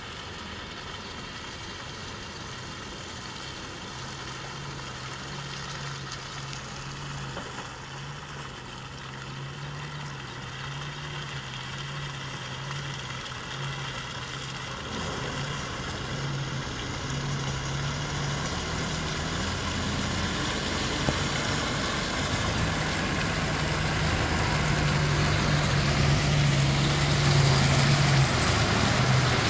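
Diesel engines of heavy, loaded goods trucks crawling over a muddy, rutted road, a steady low drone that grows louder as the trucks come closer. A short knock sounds about two-thirds of the way through.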